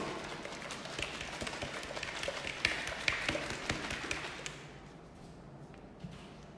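Four eggs being shaken hard in a plastic Tupperware Quick Shake shaker: a quick run of taps and knocks for about four and a half seconds, then the shaking stops.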